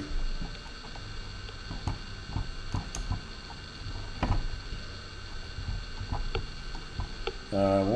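Scattered light clicks and taps of a small hand driver working the tiny screws out of a drone's motor mount, over a steady electrical hum.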